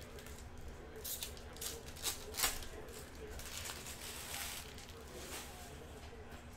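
Football trading cards and a torn foil pack wrapper being handled: a run of sharp clicks and crinkles, loudest about two and a half seconds in, then a softer rustle.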